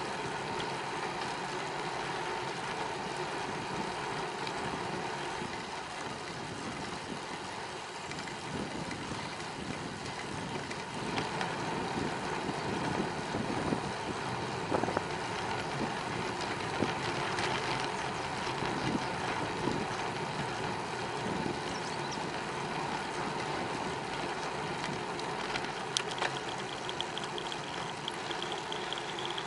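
Steady riding noise from a bicycle on a paved cycle path: a rush of wind and tyre noise with occasional small clicks and knocks, and a fast, even ticking near the end.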